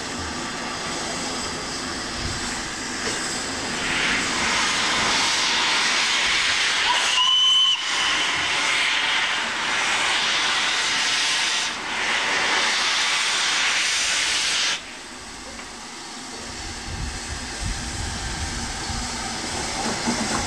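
LNER V2 steam locomotive 'Green Arrow' standing with steam escaping: a loud, steady hiss that swells about four seconds in and stops suddenly about two-thirds of the way through. A short high whistle sounds about seven seconds in.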